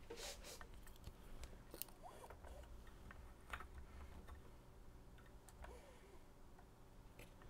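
Near silence with a few faint, scattered clicks and ticks of small objects being handled.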